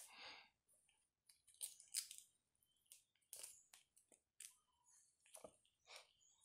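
Kittens batting and biting at a feather: faint, irregular rustles and scratches, several a second.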